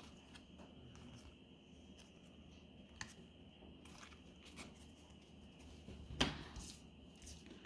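Faint handling of trading cards: a few soft clicks and rustles over quiet room tone, with a sharper tick about three seconds in and another just after six seconds.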